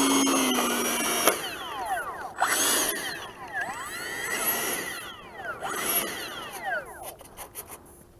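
Electric ducted-fan motor of an RC F-86 Sabre jet whining: a steady whine cuts off about a second in, then the whine sweeps down and back up in pitch several times, fading near the end.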